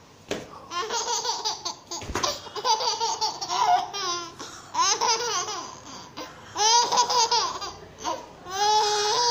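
A baby laughing in about five bursts of rapid, high-pitched laughs, each lasting roughly a second, with short pauses between them.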